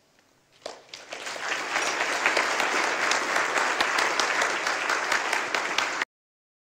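Audience applauding: the clapping starts about a second in, swells to a steady patter of many hands, then cuts off suddenly near the end.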